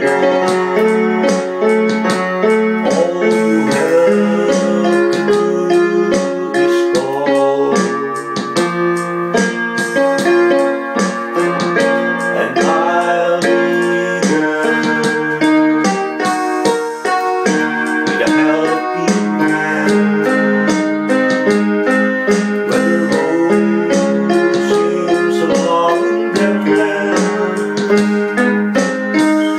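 Portable electronic keyboard played with a piano voice: a slow piece of chords and melody, notes held and overlapping.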